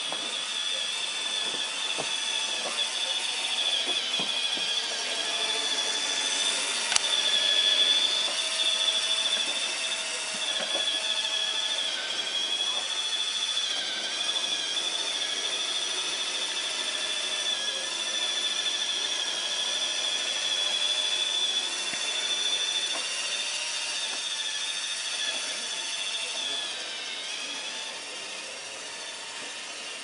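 Roomba robot vacuum running: a steady high-pitched whine from its motor and brushes, wavering slightly in pitch, loudest several seconds in and easing off near the end, with one sharp click about seven seconds in.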